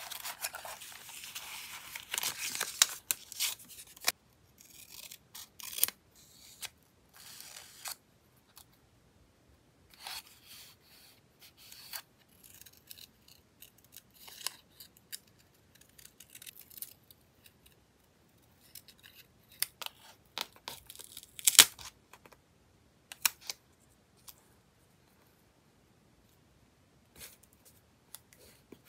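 Paper scraps rustling as they are leafed through in a stack, then scattered crisp snips of small scissors cutting paper, with light taps and rubs as cut pieces are laid and pressed onto a journal page. One sharp click, a little past two-thirds through, is the loudest sound.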